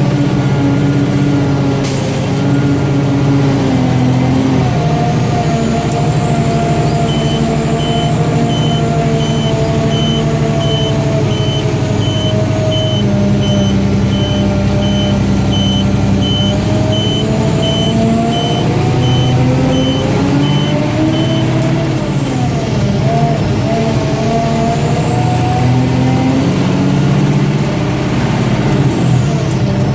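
Mack DM690 concrete mixer truck's diesel engine running, its pitch rising and falling twice in the second half. A regular beeping alarm sounds for about fifteen seconds over the engine.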